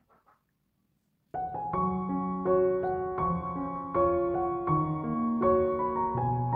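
Background piano music with a gentle, even run of notes, which starts about a second and a half in after a short stretch of near silence.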